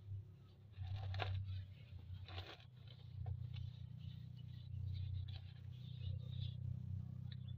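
Hands pressing and scraping loose potting soil in a plastic nursery pot: a few short, crunchy scrapes over a steady low hum.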